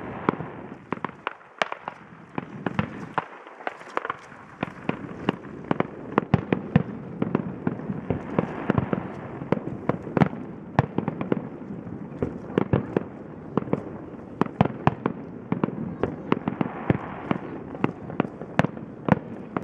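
Fireworks display: a dense, irregular barrage of sharp bangs, several a second, over a continuous rumble of noise.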